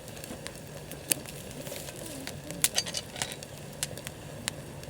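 Wood campfire crackling, with irregular sharp pops from the burning wood, a few of them louder, over a steady low hiss.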